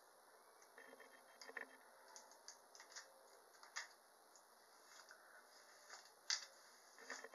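Faint scratchy rustles and small clicks of a hairbrush being pulled through thick natural hair to work out knots, in irregular short strokes, the sharpest about six seconds in.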